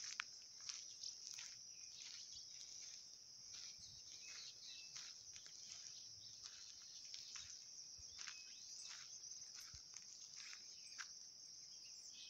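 Faint, steady high-pitched drone of an insect chorus, with scattered soft ticks throughout.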